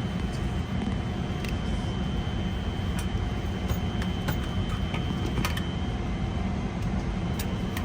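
Steady rushing hum of an airliner cabin's air-conditioning at the gate, with a faint steady whine and a few light clicks of small items being handled.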